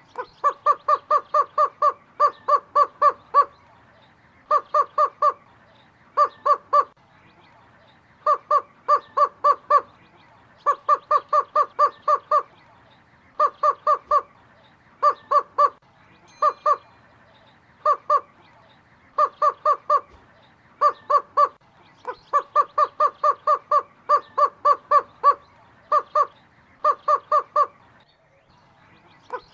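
Greater roadrunner calling: short, level-pitched notes repeated about four or five a second in runs of two to eight, with brief pauses between runs.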